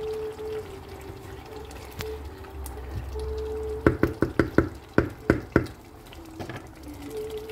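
Wooden spatula stirring thick tomato stew with turkey pieces in an aluminium pot, wet and sloppy. About four seconds in, the spatula knocks against the pot in a quick run of about eight sharp knocks.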